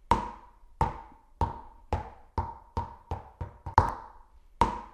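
A cartoon bouncing-ball sound effect: about eleven sharp knocks, each with a short ringing tail. They come faster around the middle, then space out again near the end.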